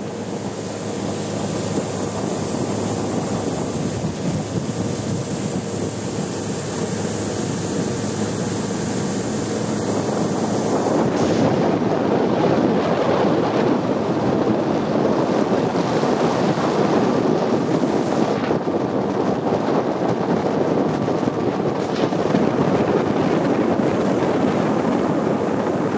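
Long-tail boat under way: its engine runs steadily beneath wind buffeting the microphone and water rushing past the hull, growing louder about eleven seconds in.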